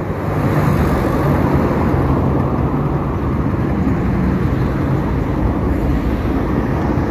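Motorcycle riding along, a steady engine hum under wind and road noise.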